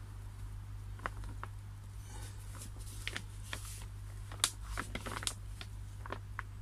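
Plastic pond liner crinkling and crackling in irregular bursts as hands press and smooth a repair patch onto it, busiest toward the middle, over a steady low hum.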